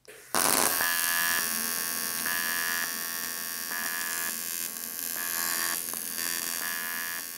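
Pulsed AC TIG welding arc on aluminium, set to 150 amps: it strikes suddenly a moment in and buzzes steadily. A higher tone swells and drops about every second and a half with the pulse. The arc dies away near the end.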